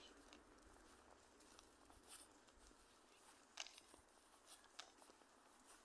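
Near silence with a faint hiss, broken by a few brief faint clicks and rustles.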